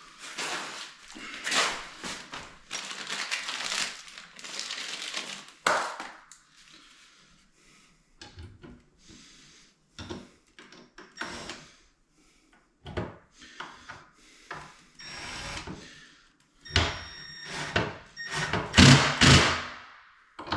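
Hand work on a wooden vanity door while a cabinet handle is fitted. Rough rubbing and scraping for several seconds, then scattered clicks and knocks of tools and hardware, with a few louder knocks near the end.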